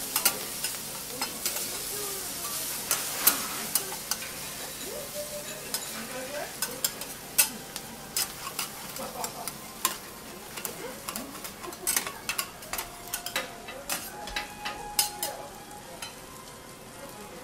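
Food sizzling on a steel teppanyaki griddle, with metal spatulas clicking and scraping against the plate as yakisoba noodles are stir-fried.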